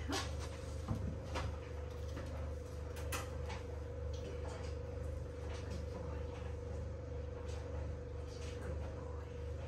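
A steady hum with a thin steady tone, with scattered light taps and clicks as a person and a puppy move about on the kitchen floor.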